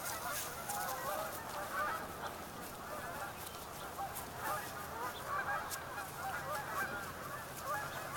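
A flock of waterfowl calling: many short honking calls overlapping one another, steady and continuous.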